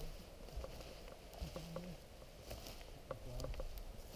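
Faint, scattered soft clicks and light patter.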